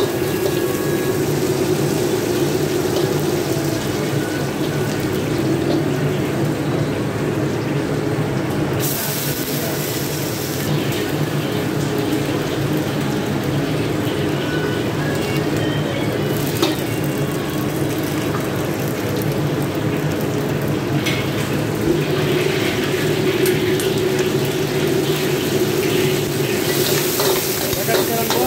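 Stir-frying in a carbon-steel wok over a gas burner: a steady burner rush under the sizzle of frying garlic. Louder hissing flares up about nine seconds in, as the kailan goes into the hot wok, and again near the end as liquid hits the pan and steams.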